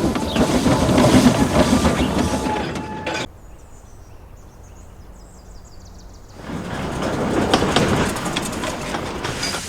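Dubbed steam locomotive running sound effect, a dense rushing clatter that cuts off abruptly about three seconds in. A quieter stretch with a faint high whine follows, then the running train sound returns loudly at about six and a half seconds.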